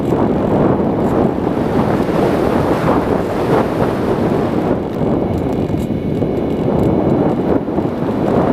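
Wind rushing over the microphone, a loud, steady rush with no clear motor tone, typical of the airflow on the onboard camera of a Sky Eye glider in flight.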